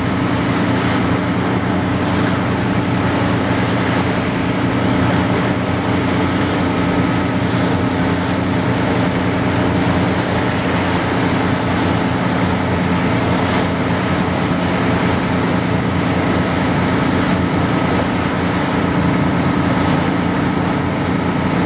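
Cruise boat's engines running with a steady low drone, along with the rush of water and wind on the microphone.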